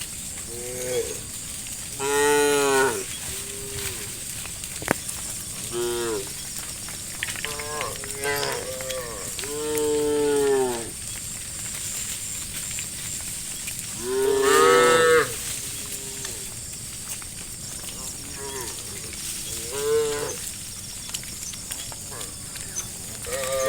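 A herd of cattle mooing: about ten separate calls from different cows, some short and some long. The loudest come about two seconds in, near the middle and about two-thirds of the way through.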